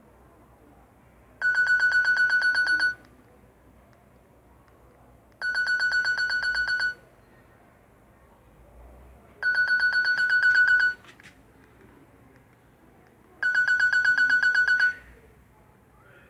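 Nokia N70 mobile phone playing a trilling ringtone through its speaker: a rapidly pulsing high tone about a second and a half long, repeated four times, about every four seconds.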